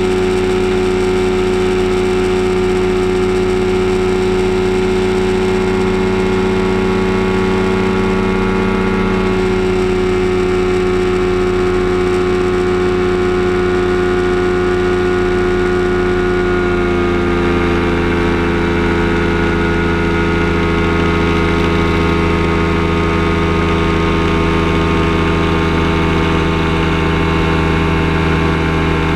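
Kolb Firestar II ultralight's engine and propeller running steadily in flight, heard from the cockpit. The engine note drops a little in pitch about nine seconds in, and again about seventeen seconds in.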